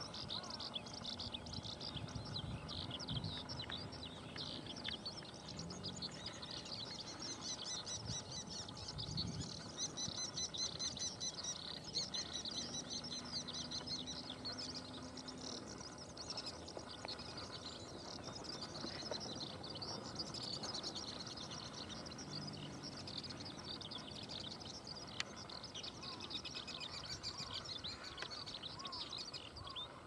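Continuous dense, high-pitched chirping of small wild creatures in open grassland, with a faint low hum that comes and goes.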